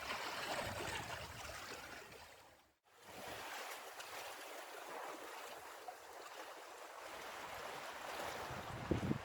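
Sea water rushing and washing, a steady noise that breaks off for a moment about three seconds in. Near the end, wind buffets the microphone.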